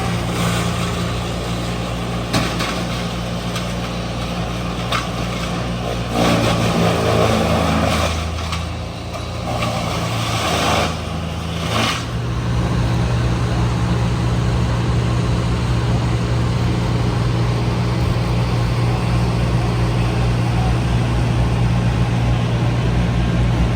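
A heavy machine's engine runs steadily with a low drone, with a few knocks and louder noisy spells in the middle. About twelve seconds in, the engine settles into a stronger, even note.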